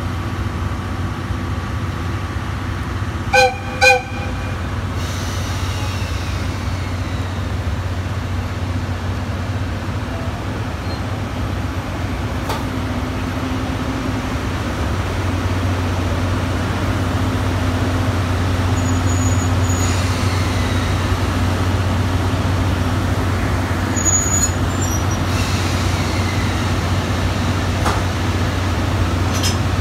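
Two short toots of a locomotive horn, then the steady low hum of a JR EF65 electric locomotive running slowly up to the 12-series coaches to couple, louder in the second half as it draws near.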